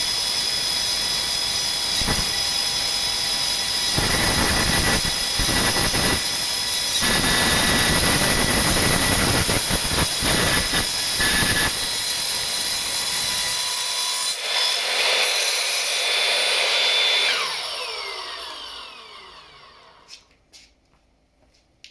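Circular saw fitted with a SabreCut multi-material blade, cutting through a 50 mm solid mild steel bar. The cutting noise grows louder about four seconds in. About seventeen seconds in the saw is switched off and winds down, falling in pitch, and a few light knocks follow near the end.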